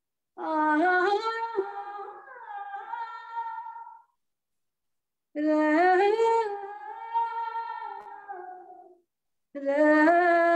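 A woman singing an Oraon folk song in Kurukh, unaccompanied, in three long, drawn-out phrases with sliding, held notes. Each phrase stops in dead silence, heard over a video call.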